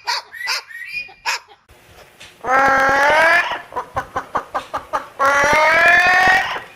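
A parrot calling: a few short squawks, then a long drawn-out call that rises slightly in pitch, a run of quick clucking pulses at about four to five a second, and a second long rising call.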